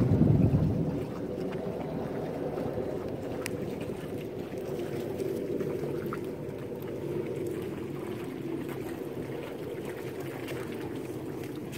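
Steady low rumble of background noise, with a louder gust of wind buffeting the microphone in the first second.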